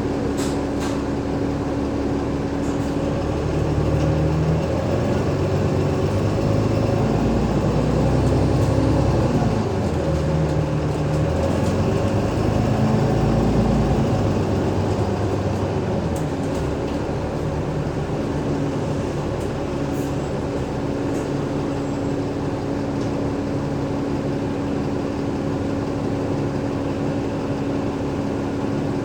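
Alexander Dennis Enviro500 double-decker bus's Cummins ISL8.9 six-cylinder diesel engine and ZF Ecolife automatic gearbox running under way. The engine note shifts and rises through the first half and settles steadier after about sixteen seconds, with a steady droning tone underneath.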